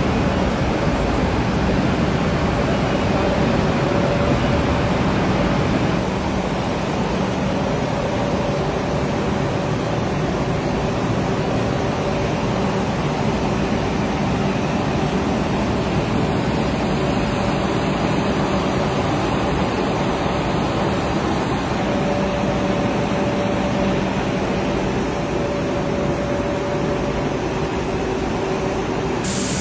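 Steady noise of sago pearl (sabudana) processing machinery running: conveyor belts and motors, a continuous rushing din with a low steady hum. It drops slightly in level about six seconds in.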